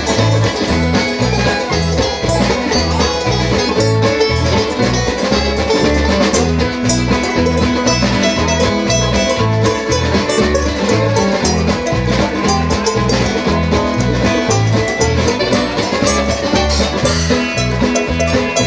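Live bluegrass band playing an instrumental break between verses: banjo, acoustic guitar and fiddle over a steady low beat.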